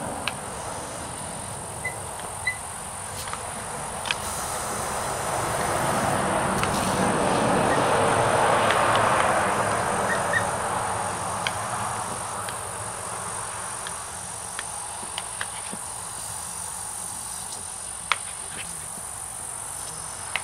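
Water spray from a lawn sprinkler hissing, swelling to its loudest about halfway through and then easing off, with scattered sharp clicks over it.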